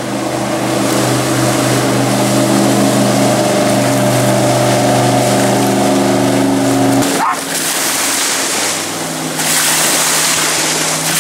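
Jet boat passing close at a slow plowing speed, partly off plane, its engine running as a steady pitched drone. About seven seconds in the engine sound cuts off, giving way to the rushing wash of its wake surging up onto the sandy beach, which grows louder after about nine seconds.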